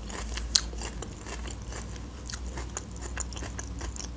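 A person chewing a mouthful of Caesar salad with the mouth closed: a run of short, crisp crunches, the sharpest about half a second in.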